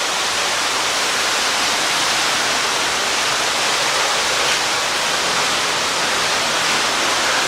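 Steady rush of falling water, an even hiss that holds at one level.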